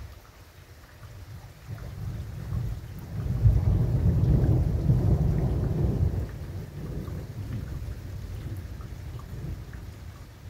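Thunder rumbling: a low rumble builds about two seconds in, is loudest for a few seconds in the middle, then dies down to a lower, lingering rumble.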